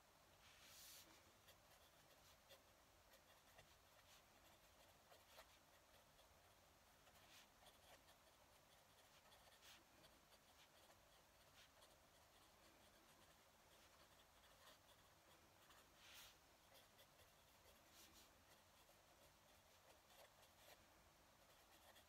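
Fountain pen nib scratching faintly across paper as it writes cursive, with a few sharper strokes now and then.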